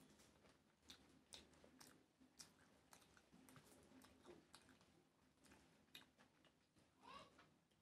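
Faint close-up eating sounds: scattered soft wet clicks of chewing and of fingers mixing rice and curry on a banana leaf.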